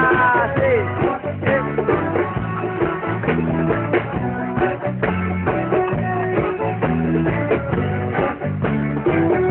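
A live band playing: strummed guitar over bass and a drum kit, with a steady beat and repeating bass notes.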